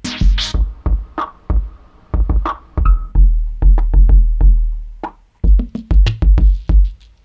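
Drum-machine beat loop from an analog drum machine run through modular synthesizers and outboard gear: deep kicks, some with a long low tail, under crisp snares and hi-hats, with a short synth blip now and then.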